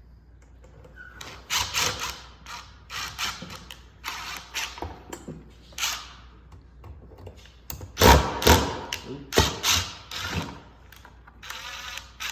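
Knocks, clunks and scraping rattles as the catch basket is worked off a Sticker Burr Roller, with the loudest run of knocks about two-thirds of the way through.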